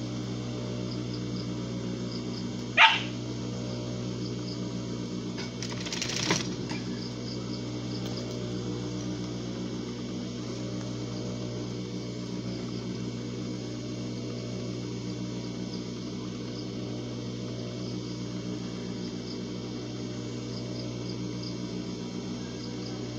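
Steady electric hum of an industrial sewing machine's motor running while the needle is not stitching. About three seconds in there is a single short, sharp cry, and a brief noisy rustle follows around six seconds.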